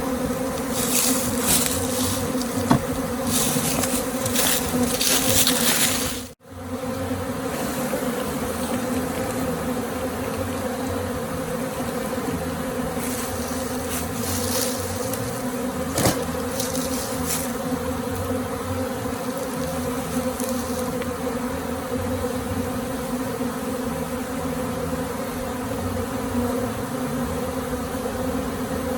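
A honey bee swarm buzzing as a dense, steady drone with a pitched hum. Patches of higher hiss come and go in the first few seconds and again past the middle, and the sound drops out abruptly for a moment about six seconds in.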